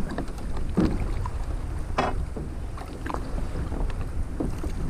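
Wind buffeting the microphone over water moving around small plastic kayaks at sea: a steady low rumble, broken by a few short sharp sounds about a second, two seconds and three seconds in.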